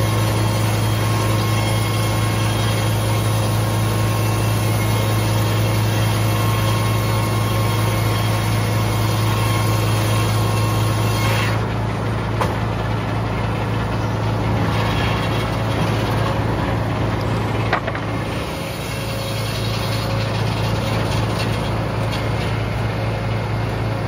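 Frick circular sawmill sawing a red oak log over the steady low drone of its power unit. About halfway through the cutting noise drops away and the blade runs free, with a single knock a few seconds later.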